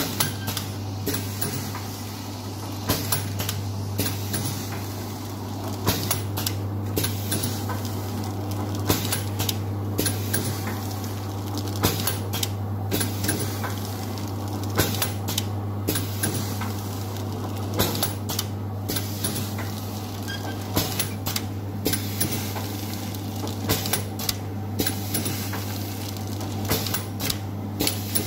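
Automatic vertical tea-pouch packing machine running: a steady low hum with sharp metallic clacks about once a second as it forms and seals the pouches.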